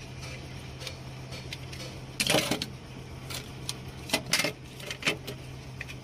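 Handling noise: a few sharp clicks and short rattling knocks, the loudest about two seconds and four seconds in, over a steady low hum.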